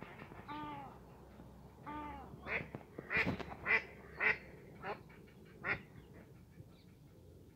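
Ducks quacking: two drawn-out calls in the first two seconds, then a run of about six shorter, sharper quacks.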